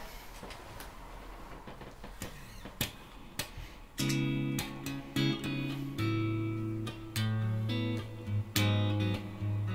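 Electric guitar played through an amplifier: a few clicks and handling noises, then about four seconds in a blues of sustained chords and bass notes that change every half second or so.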